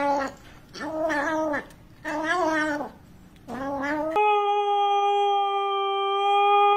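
Kitten giving four short, whining calls over its food bowl, each under a second, rising and falling in pitch. About four seconds in, a husky takes over with one long, steady howl.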